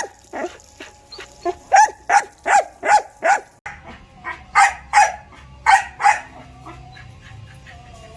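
Belgian Malinois barking in quick runs of short, sharp barks, one every third to half a second, which stop about six seconds in.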